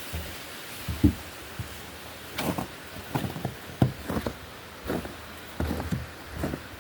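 Footsteps of a person walking at a steady pace, about one and a half steps a second, over a steady background hiss.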